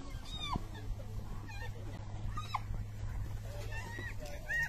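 Spotted hyenas giggling: a few short, high, sliding calls, one falling sharply about half a second in, over a low steady hum that stops near the end.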